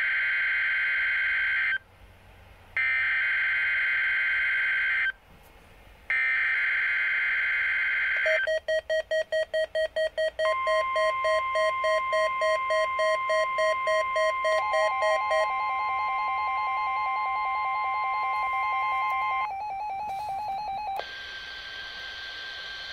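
NOAA Weather Radio test alert coming from a Midland WR100 weather radio. It opens with three short bursts of the buzzing, screeching SAME digital header data, about a second apart. Then comes the steady 1050 Hz warning alarm tone, held for about nine seconds, overlapped by the radio's own rapidly pulsing alert beeps that step up in pitch partway through.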